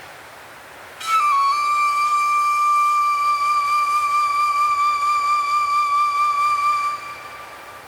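A single long flute note held over a soft, wind-like hiss. The note comes in about a second in, dips slightly in pitch as it settles, holds steady, and fades out near the end.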